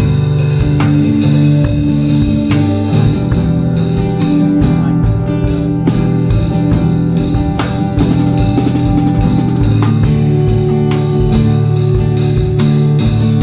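Worship band playing: a Pearl drum kit keeps a steady beat under sustained bass notes and guitar.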